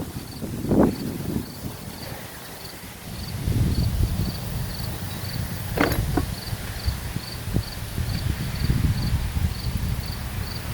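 A cricket chirping steadily, about two chirps a second, over a low rumble, with a few sharp clicks and knocks, one about a second in and a cluster around six to seven and a half seconds in.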